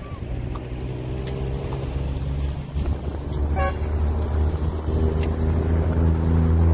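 Car engine running steadily, growing louder, with one short horn toot about three and a half seconds in.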